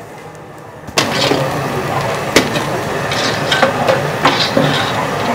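A metal ladle stirring rice and vegetables in a large aluminium pot of boiling water, starting about a second in: sloshing with repeated clanks of the ladle against the pot.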